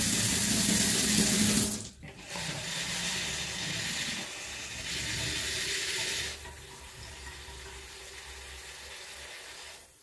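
Kitchen tap running into the sink. It cuts off about two seconds in, runs again more softly, and stops about six seconds in. A fainter steady hiss follows.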